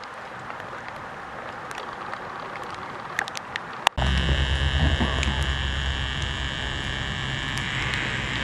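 Airport apron ambience. First a soft hiss with scattered light ticks, then, from a cut about four seconds in, the loud steady hum and whine of parked airliners' turbines running.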